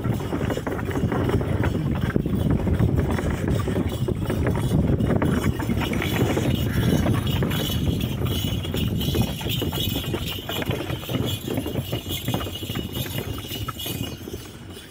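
Camel-drawn wooden cart rolling along a dirt track, rattling and clattering over the ruts as the camel walks. The clatter eases off near the end.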